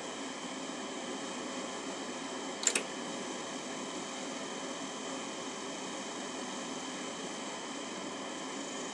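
Briteq RGB laser projector's cooling fan running with a steady whir and several faint high steady tones. A brief sharp double click about two and a half seconds in.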